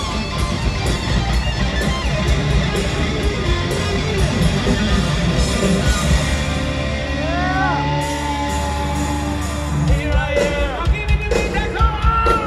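Hard rock band playing live in an arena: electric guitars and drums, heard from among the audience. About seven seconds in, a long bent note rises above the band and holds. Near the end, short sung or shouted lines come through over the music.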